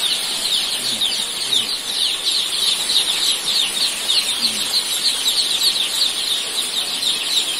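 A large flock of young joper chicks peeping all at once in a brooder: a dense, continuous chorus of short, high, falling chirps.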